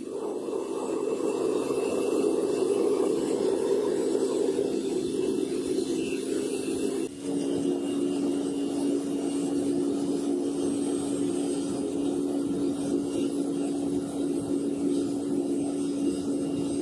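A melting furnace running at full fire: its burner and air blower make a steady roar with a constant hum. The roar dips briefly about seven seconds in, and after that the hum stands out more.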